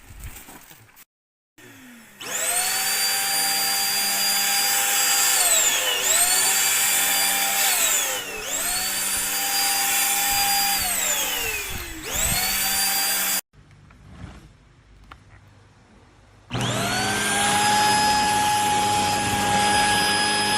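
Deerma EX919 handheld dust mite vacuum cleaner, its motor switched on about two seconds in and running with a steady high whine. Three times the whine winds down and jumps back up as it restarts. Then it stops for about three seconds and starts again, running steadily.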